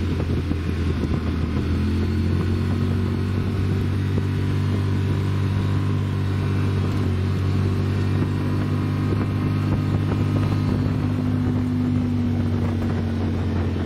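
Side-by-side UTV engine running steadily under way, heard from inside the open cab, a constant low hum with road noise.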